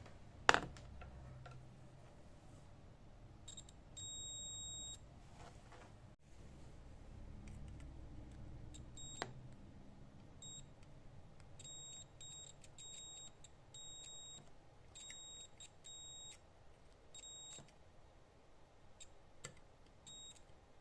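A multimeter's continuity beeper sounds a high-pitched tone: one long beep about four seconds in, then a run of short, uneven beeps as the probes make and break contact on the sound bar's connections. A sharp click about half a second in is the loudest sound.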